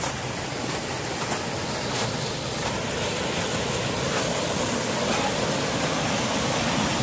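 Steady rushing of a mountain waterfall, slowly getting louder, with a few faint footsteps.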